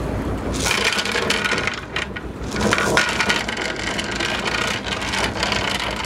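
Anchor chain rattling out over the catamaran's bow as the anchor is let go, a dense clatter of metal links.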